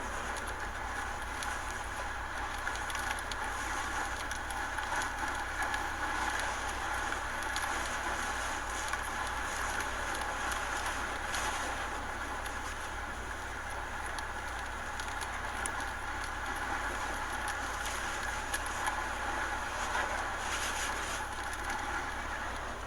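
Hurricane wind and rain: a steady rush of noise with scattered faint crackles.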